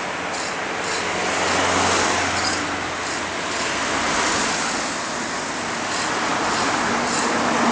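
Passing vehicle noise that swells and fades a few times, over a steady low engine hum.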